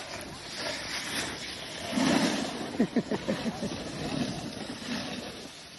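Snowboards scraping and sliding over rutted snow, with wind rushing over the phone microphone. A low buffet of wind comes about two seconds in, followed by a short patch of chattering scrapes.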